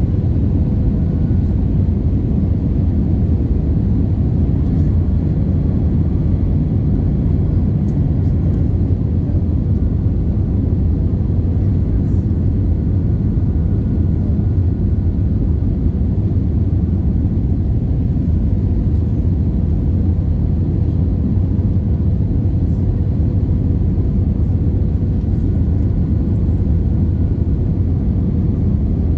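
Airbus A320 cabin noise heard from a window seat over the wing on approach: a loud, steady rumble of airflow and engines, with a faint steady hum above it.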